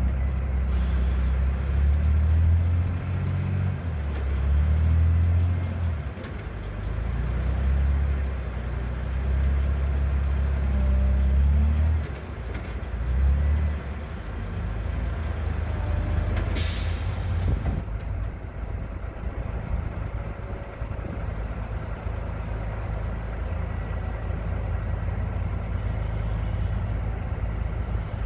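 Wheel loader's diesel engine revving in repeated surges as it is driven onto a lowboy trailer, then running more steadily. About 17 seconds in there is a loud air hiss, with briefer fainter ones near the start and near the end.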